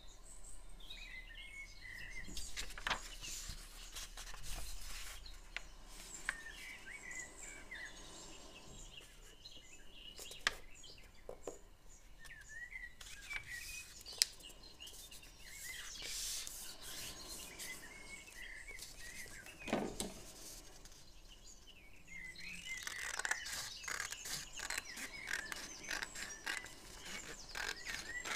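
Paper being handled and folded by hand, with rubbing and light taps as creases are pressed, while small birds chirp faintly in the background. Near the end, scissors cut through the paper.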